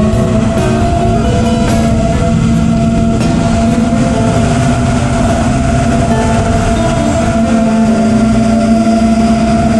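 A 6S FPV quadcopter's brushless motors running in steady cruise, a loud, even whine with a constant pitch over a low rumble. Music plays underneath.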